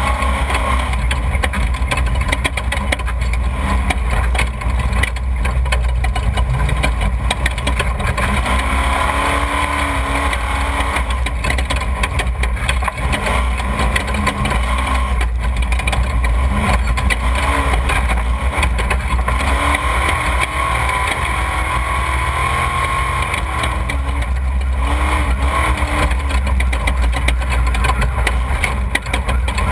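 Off-road desert race vehicle's engine running steadily, its pitch drifting up and down, over a constant deep rumble.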